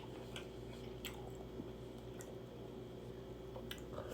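Close-miked chewing of shrimp from a seafood boil: soft, wet, squishy mouth sounds with a few faint clicks.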